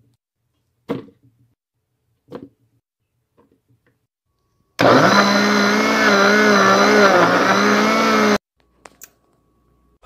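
Countertop blender motor running for about three and a half seconds, blending chunks of beet and pineapple into juice, its pitch wavering as the load shifts; it starts and cuts off abruptly. A few short soft knocks come before it.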